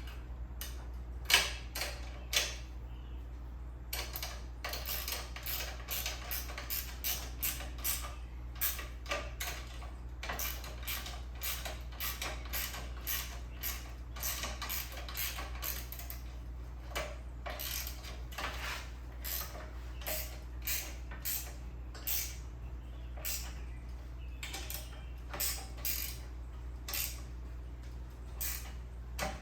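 Wrench tightening the bolts on a metal miter saw stand's brackets: a long run of short, sharp clicks, two or three a second, after a single loud knock about a second in. A steady low hum runs underneath.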